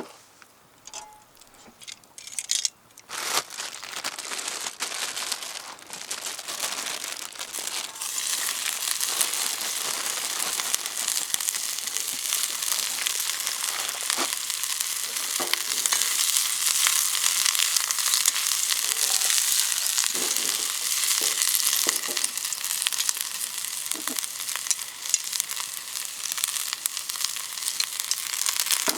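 Food frying in a hot Uniflame camp wok. It starts suddenly about three seconds in after a few light knocks, then settles into a steady sizzle with occasional knocks.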